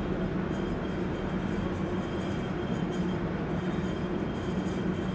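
New York City subway shuttle car standing still, its onboard equipment giving a steady low hum with a faint high whine over it.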